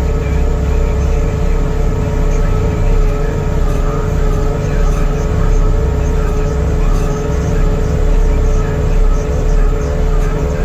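John Deere 325 skid steer running hard to drive a Jenkins hydraulic stump grinder attachment: a steady, loud engine rumble with a constant hydraulic whine that rises slightly near the end.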